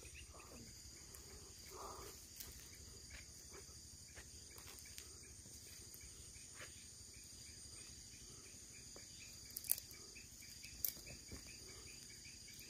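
Faint night chorus of crickets and other insects, a steady high-pitched shrilling, with a few soft clicks about ten seconds in.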